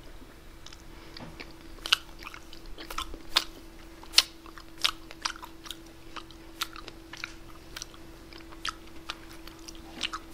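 Close-miked mouth sounds of a person eating cherry jubilee ice cream: irregular wet chewing and lip-smacking clicks, one or two a second, over a faint steady hum.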